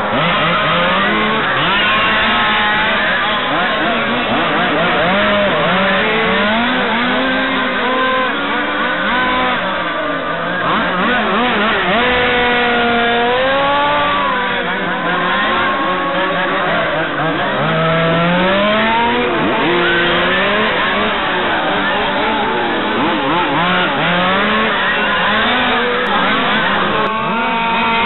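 Several 1/5-scale RC touring cars' two-stroke petrol engines running at race pace, their high, buzzing pitches rising and falling over one another as they accelerate and slow for the corners.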